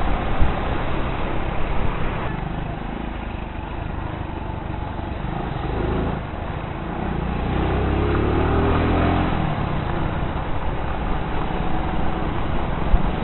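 Hero Splendor single-cylinder four-stroke motorcycle running along a city road, its engine hum mixed with steady wind and road noise. A deeper engine drone swells about seven seconds in and eases off by ten.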